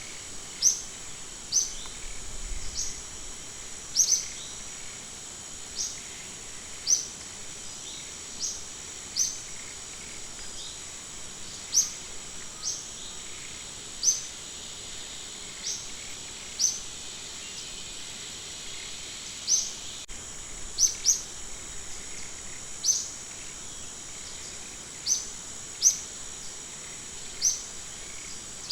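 Steady high-pitched insect drone, with short sharp falling chirps repeating irregularly every second or two.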